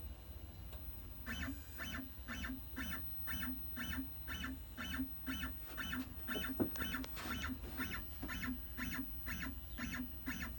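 Stepper motors of a BobsCNC E4 router jogging the bit across the work in short repeated moves, a brief buzz about twice a second starting a little over a second in. One sharper click about six and a half seconds in.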